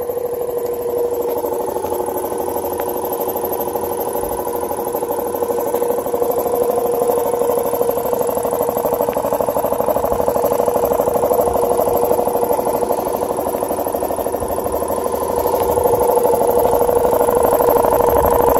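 1965 DeVilbiss air compressor running, its 1/2 HP electric motor driving the pump with a steady hum and a fast, even pulsing. It grows a little louder near the end.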